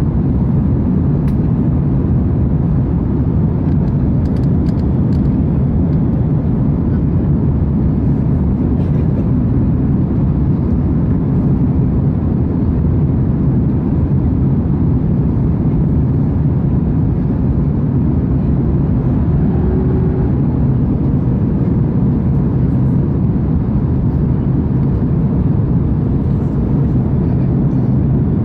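Steady low roar of an Airbus A330-200 airliner's cabin in flight: engine and airflow noise, even and unchanging.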